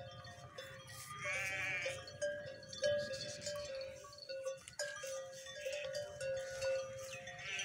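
Background music with a held, stepping melody, over which an animal bleats with a wavering voice about a second in and again near the end.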